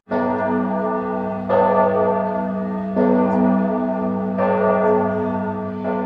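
Bell of the Maria Neustift pilgrimage church ringing, with a fresh stroke about every second and a half and the hum of each carrying into the next.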